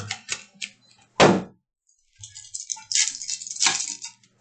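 Foil trading-card pack wrappers crinkling and tearing as the packs are opened and the cards handled, with one loud sharp rip about a second in and a longer burst of crinkling from about halfway to near the end.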